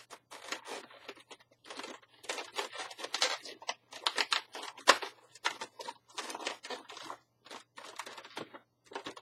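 Latex twisting balloons rubbing and squeaking against each other and against hands as they are handled and twisted, in a run of short, irregular rubs.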